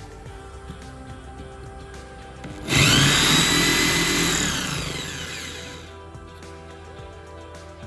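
Eposch 10 mm electric drill run briefly: its motor starts suddenly about two and a half seconds in with a loud whine, then winds down over about three seconds, its pitch falling. Background music plays throughout.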